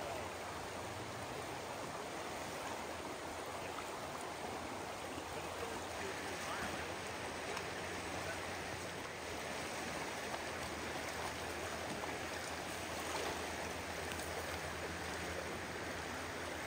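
A shallow, fast river rushing steadily over a gravel and cobble bed.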